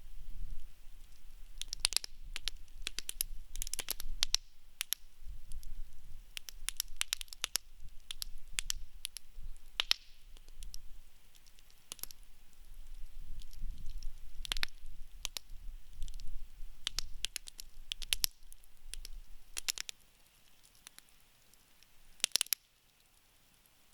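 Wood campfire crackling in a fire pit: irregular sharp pops and snaps, some in quick clusters, over a low rumble that drops away near the end, with a loud burst of pops shortly before the end.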